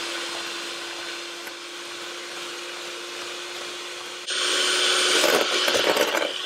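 Electric hand mixer running steadily, its twin beaters whipping egg whites to a foam in a stainless steel bowl. About four seconds in the sound turns suddenly louder and rougher.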